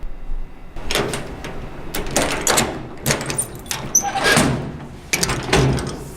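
A drawer sliding and knocking, opened and shut several times, with scraping and clunks.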